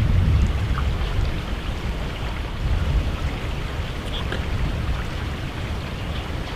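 Wind buffeting the microphone as a steady low rumble that slowly eases, with a few faint ticks scattered through it.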